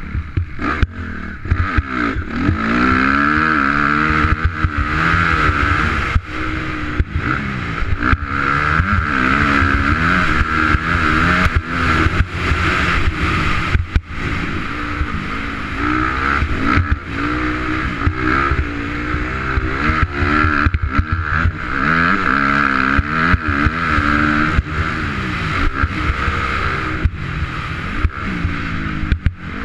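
2004 Honda CRF250R's single-cylinder four-stroke engine under riding load, its pitch climbing and dropping again and again as the throttle is opened and shut through the turns and gear changes. Frequent brief knocks and buffets run through it.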